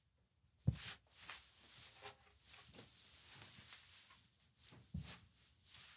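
Faint handling of paper cutout figures being set onto a board: a light tap just under a second in, then soft rustling and a couple of small taps near the end.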